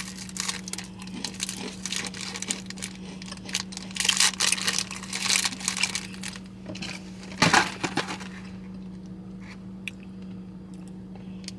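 Crinkling of a snack wrapper and crunching of blueberry breakfast biscuits being eaten, with a steady low hum underneath. The crackles are thick for the first eight seconds, the loudest just before the end of that stretch, and then thin out to a few ticks.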